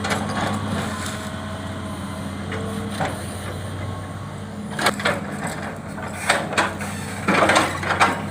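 Hitachi Zaxis 200 excavator's diesel engine running steadily while its bucket works through leftover rubber-wood debris, wood cracking and crunching. The cracks come singly about five seconds in, then thicken into a run of crunching knocks toward the end.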